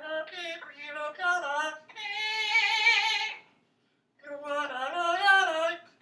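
Green parrot singing opera-style in two phrases: the first ends in a long held note that wavers in pitch, and the second starts after a short break.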